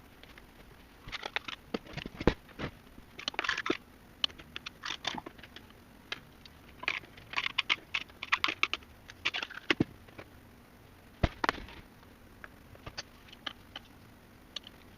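Irregular clicks, taps and short scraping rattles of small machine parts and hand tools being handled during repair of a key-cutting machine, with a few sharper knocks.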